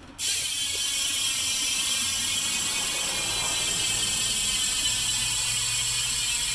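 BMX rear wheel spun by hand, its Colony Wasp hub freewheeling with a fast, steady ratcheting buzz from the pawls. The buzz starts suddenly and holds.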